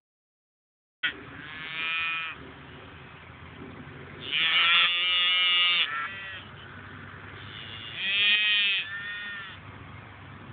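Calf bleating in its sleep while dreaming: three drawn-out, wavering calls, the loudest about four seconds in.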